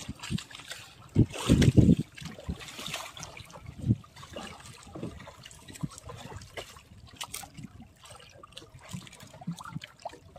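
Sea water trickling and lapping against a small boat's hull, with scattered light knocks. A louder rumbling bump comes in the first two seconds.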